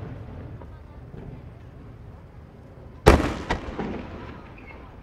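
Aerial firework shells bursting: the fading echo of an earlier burst, then a loud boom about three seconds in and a second, sharper crack half a second later, the reports rolling away in echoes.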